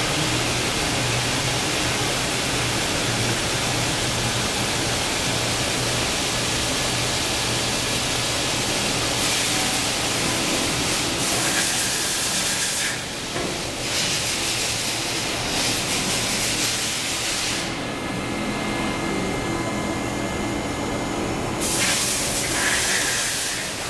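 CNC mill machining an AR-15 lower receiver: steady spindle and cutting noise, with a hissing spray that switches on and off several times in the second half.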